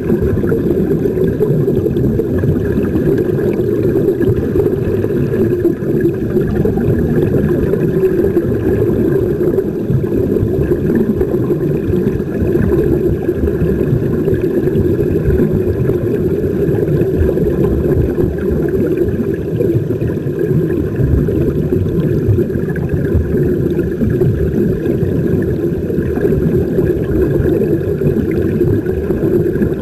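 Steady, loud underwater rumble of air bubbles streaming out of surface-fed diving helmets, heard through a waterproof camera case.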